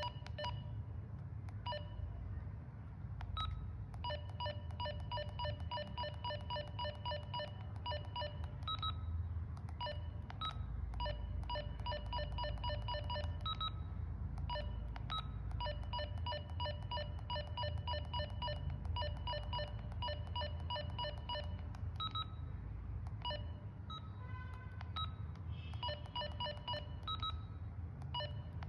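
Keypad beeps from a TXQ 8800 handheld radio as its menu arrow keys are pressed: runs of short, same-pitched beeps, about four to five a second, broken by pauses, over a low steady hum.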